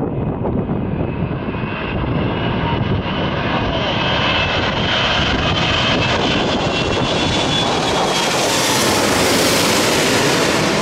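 Four-engined Airbus A380 jet airliner on final approach to land, flying low overhead: its engine noise builds steadily louder and brighter, with a high engine whine coming in a couple of seconds in, and peaks near the end as it passes directly over.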